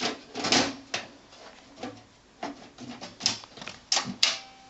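Side access cover of a desktop computer case being fitted back on: irregular knocks and clicks, with short scrapes, as the panel is pushed into place and latched.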